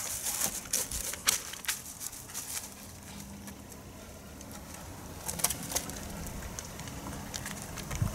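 Rustling and crunching in dry fallen leaves and brush as feet move through them: scattered sharp crackles, busiest in the first couple of seconds and again about five seconds in, with a quieter stretch between.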